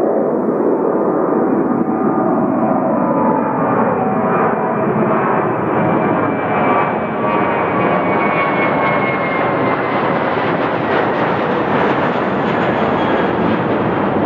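Twin-engine Airbus A320-family jet airliner climbing out after takeoff at takeoff thrust: a steady loud jet roar whose whining tones fall in pitch over the first few seconds. From about halfway through the sound turns brighter and more hissing as the jet passes close overhead.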